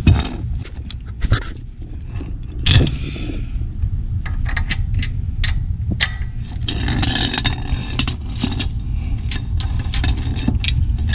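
Metal hand tools clinking, knocking and scraping on a car's underside as a wrench works at a stuck oil drain bolt, with a run of rapid clicks from about six and a half seconds in.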